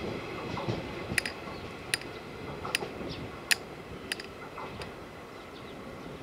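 JR West 115-series electric train pulling away and fading into the distance. A series of sharp clicks comes about every three-quarters of a second.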